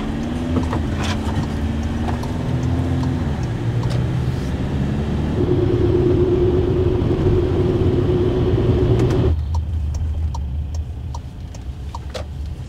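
Camper van driving at road speed, heard from inside the cab: steady engine drone and tyre and road rumble. The noise drops suddenly about nine seconds in, leaving a quieter low rumble as the van moves slowly.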